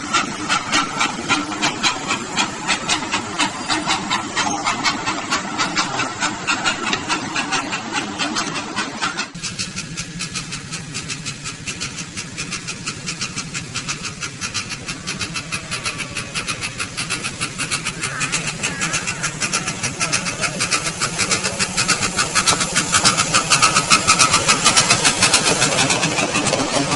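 Miniature live-steam locomotive exhaust chuffing in a steady, slow beat. The sound is time-stretched to about 18% of its original speed so that it sounds like a full-size engine. The sound changes abruptly about nine seconds in, then grows louder towards the end.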